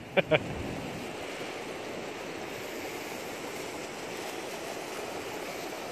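Steady wash of surf breaking on a beach, with two short sharp sounds right at the start.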